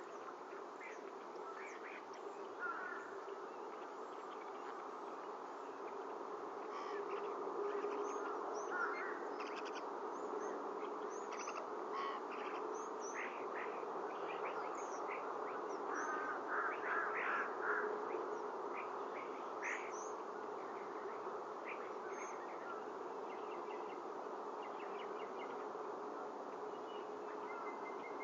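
Outdoor nest-camera sound: a steady low hum and hiss, with short high bird chirps scattered throughout and a quick run of chirps a little past the middle.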